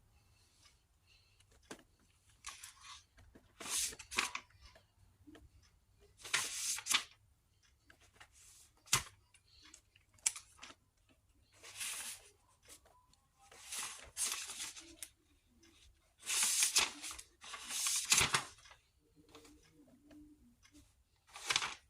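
Irregular rustling and scraping noises, short bursts every second or two.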